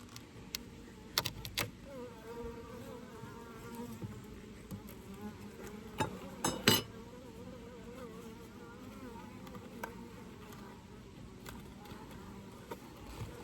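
Honeybees buzzing close by, the buzz wavering in pitch as a bee flies near. A few sharp wooden clicks and knocks from hive frames being pushed together, the loudest near the middle.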